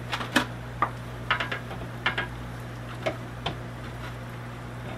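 Metal tongs clicking and tapping against the air-fryer grill pan as chicken wings are picked out: a handful of light, irregular clicks.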